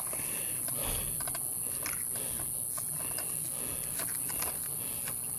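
Night insects, crickets or katydids, droning steadily at a high pitch, with scattered faint rustles and clicks over it.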